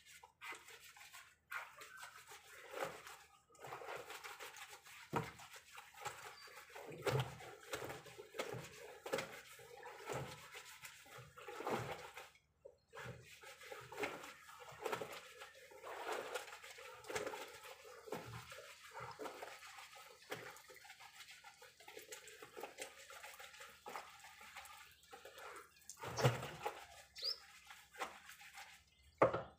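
Water sloshing and a wet blanket squelching in a plastic drum as it is plunged and pulled up by hand, in repeated irregular strokes.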